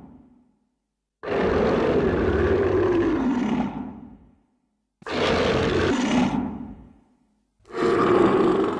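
Godzilla's roar sound effect from the 1984 film, played three times with dead silence between: a long, rough roar of about three seconds whose pitch falls, a shorter one, then a louder one near the end.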